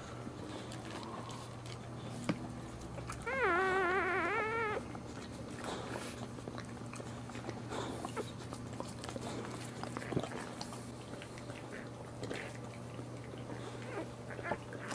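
Newborn boxer puppy crying once, a single wavering, quavering squeal of about a second and a half a few seconds in, over soft licking and rustling from the mother dog and a steady low hum.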